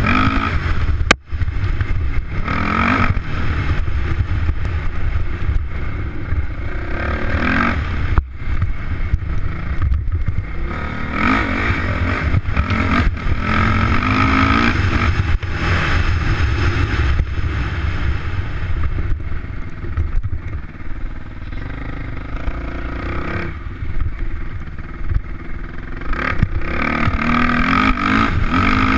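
Off-road motorcycle engine revving up and easing off again and again, pitch climbing through the gears, with a heavy steady low rumble underneath.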